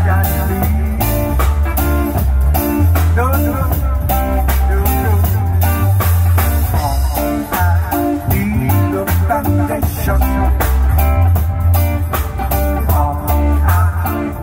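A live band plays: electric guitar over a heavy electric bass line and a steady drum-kit beat.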